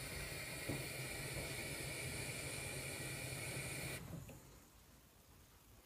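Steady hiss from an aluminium stovetop moka pot brewing on a gas burner as coffee begins to rise out of its central column, with a low hum under it; the hiss cuts off suddenly about four seconds in.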